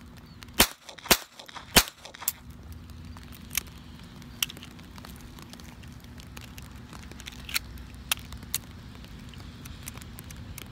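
Three .22 LR pistol shots in quick succession from a Walther P22 fitted with a Pike Arms FS22 fake suppressor, a barrel extension with no baffles, so it does not quieten the reports. After that the pistol falls silent and a few light metallic clicks follow as the action is worked.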